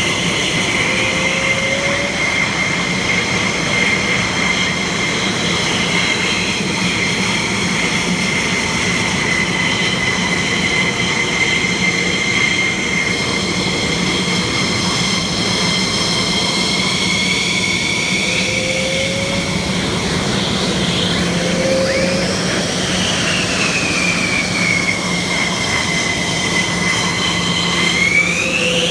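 F-16 Fighting Falcon jets taxiing, their single turbofan engines running at taxi power: a loud, steady jet whine over a low hum. The whine swings down and back up in pitch as each jet rolls past, most clearly near the end.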